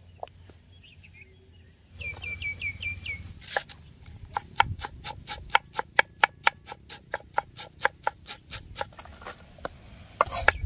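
Kitchen knife chopping finely on a cutting board, even strokes about four a second for around five seconds, starting a little past three seconds in. Just before, a short run of high chirps.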